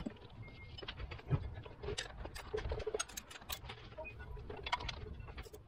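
Scattered light clicks and taps of a serpentine belt being fitted by hand over the engine's pulleys.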